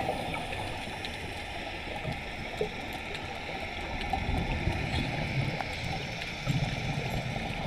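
Underwater ambience heard through a submerged camera while swimming with fins: a steady, muffled water rush with scattered faint clicks.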